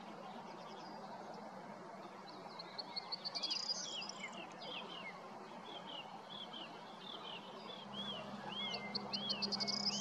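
Corn bunting singing twice, about three seconds in and again near the end: each song is a short run of quickening ticks that runs into a rapid jangling trill. Another bird repeats short arched chirps about twice a second in the background, over a steady low hum.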